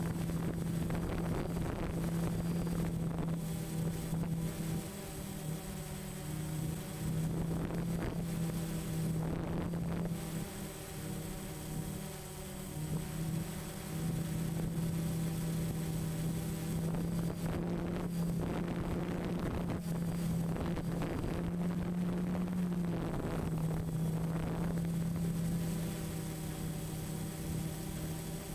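DJI Phantom FC40 quadcopter's motors and propellers humming steadily in flight, picked up by the camera on board, with wind rushing over the microphone. The hum's pitch wavers and dips a couple of times.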